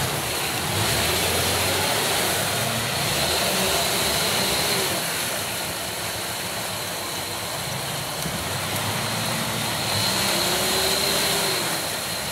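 Jeep engines running in deep mud while a strapped Wrangler tries to tow a stuck Cherokee free, the engine note swelling twice: from about a second in until about halfway, and again near the end.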